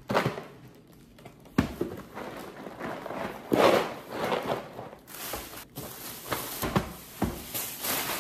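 Household items being handled and put away: a few sharp knocks scattered through, with a longer noisy stretch of handling about three and a half seconds in.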